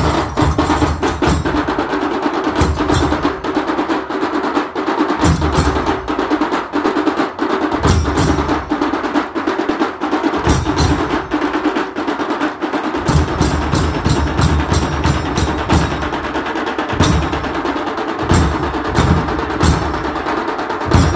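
A Shigmo Romtamel percussion troupe playing: a large barrel drum (dhol) beats in clusters of deep strokes with brief pauses, over a dense run of sharp, bright strikes.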